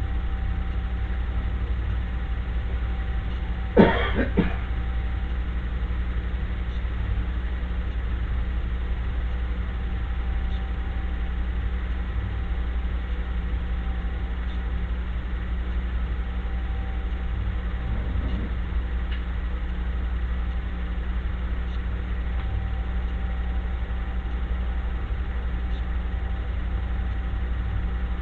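Steady low drone of a running machine, with one brief sharp sound about four seconds in.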